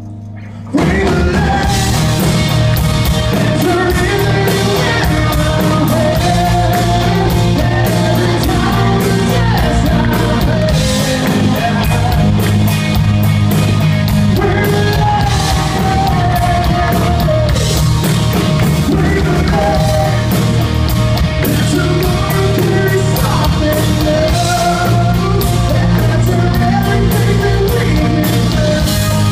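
Live rock band playing loud, with electric guitar and drums coming in in full about a second in, under a male lead vocal singing the melody.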